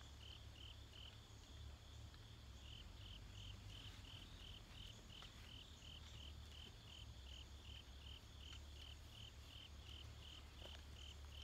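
A cricket chirping steadily, about three short chirps a second, pausing briefly about a second in, over a faint low rumble.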